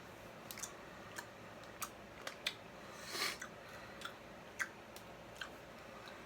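Mouth sounds of chewing a Warheads Sour Wedge gummy candy: scattered small sharp clicks and smacks, with one slightly longer sound a little after three seconds in.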